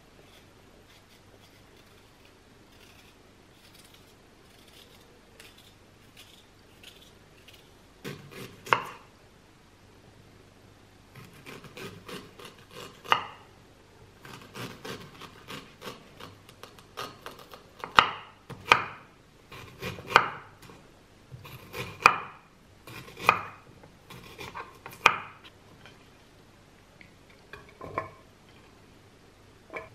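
Chef's knife slicing an apple on a wooden cutting board: sharp knocks as the blade strikes the board, at first scattered and soft, then a run of louder strikes about once a second in the second half. Faint scratching comes before the cutting starts.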